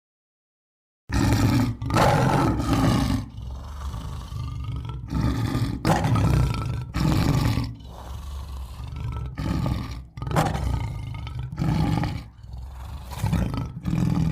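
Roaring growl sound effect: after about a second of silence, a long run of loud, rough, low roars comes one after another with short breaks.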